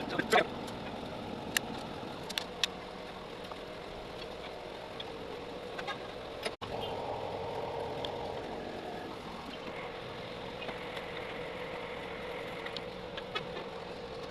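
An engine running steadily, with a few sharp clicks in the first few seconds and a sudden break about halfway through.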